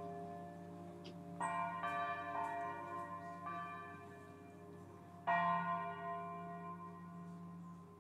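Church bells ringing, played back as a recording: several bells struck in turn with long, overlapping ringing, the loudest strike about five seconds in.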